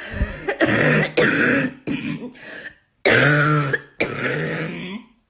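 A woman coughing in a run of harsh bouts and gasping for breath: the laboured breathing of a Covid-19 patient struggling to breathe.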